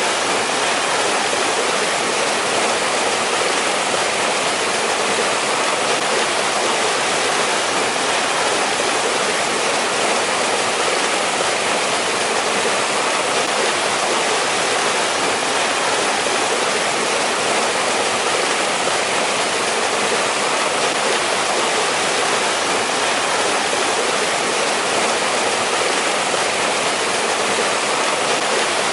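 Mountain-valley stream rushing steadily over rocks, an even, unbroken water noise.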